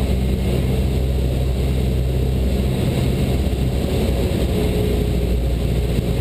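Cessna 172 Skyhawk's piston engine and propeller droning steadily as heard inside the cabin, the low hum changing in tone about three seconds in.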